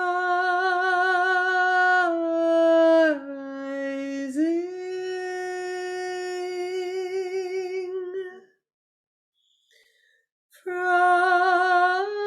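A woman's voice toning long, slow wordless notes with a slight waver. The held note dips lower about three seconds in, glides back up and holds, then stops. After a pause of about two seconds, a new long tone begins.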